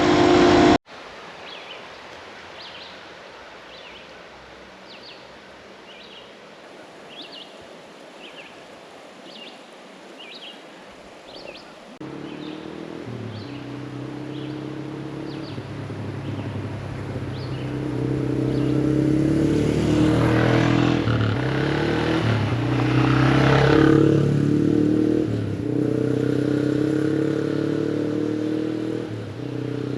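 A run of short high chirps over a quiet background. About twelve seconds in, a motorcycle engine comes in and runs steadily louder, its pitch stepping up and down as it rides.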